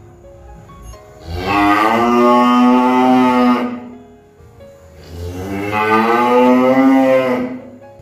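Cow mooing: two long moos about a second and a half apart, each rising in pitch as it starts.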